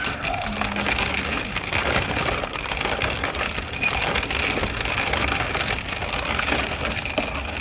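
Hand-cranked Victoria grain grinder grinding dried corn: the corkscrew auger feeds kernels between the grinding plates, giving a steady, gritty crunching and grinding as the crank is turned.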